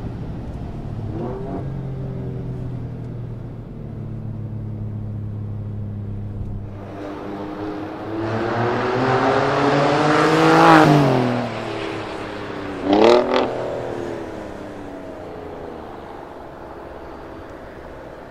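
Alfa Romeo Giulia Quadrifoglio's twin-turbo V6, breathing through a catless downpipe and Capristo cat-back exhaust, first cruising with a steady note heard from the cabin. Then it accelerates hard past, its pitch rising to a loud peak and dropping as it goes by. A short sharp double burst about thirteen seconds in is followed by a fading note as the car drives away.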